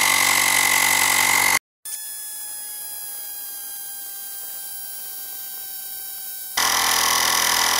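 A portable rechargeable electric tire inflator's motor and pump run with a loud, steady, high-pitched buzz while filling a mountain bike tire toward a set 33 PSI. About a second and a half in, the sound cuts out abruptly. A quieter stretch follows with a whine that falls slowly in pitch, and the loud buzz returns near the end.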